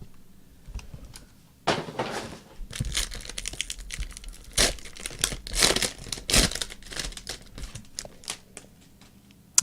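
Trading card pack wrappers crinkling and tearing as packs are opened, with cards handled, in irregular rustles.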